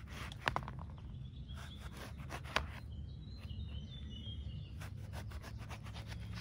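A full-flat-grind steel knife slicing through a grapefruit on a plastic cutting board: faint cutting and rubbing sounds, with two sharp taps as the blade meets the board. Faint bird chirps in the background over a steady low outdoor rumble.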